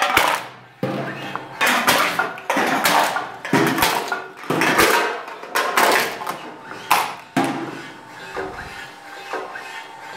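Homemade electric beer-can crusher flattening aluminium cans: a run of sharp metallic crunches and clatter about once a second as the ram crushes each can and it drops out among the others. The strokes thin out near the end.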